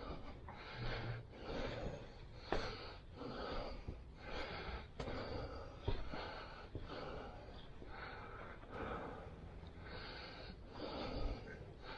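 Heavy breathing close to the microphone, about one breath a second, with a couple of sharp knocks.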